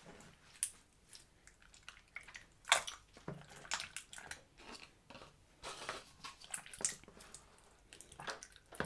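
Slime being kneaded and squeezed by hand, giving irregular wet squelches with small pops and clicks.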